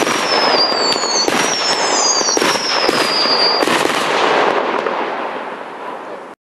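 Fireworks going off in a dense barrage of bangs and crackling, with several high whistles falling slightly in pitch over the first few seconds. The crackling fades and then cuts off abruptly near the end.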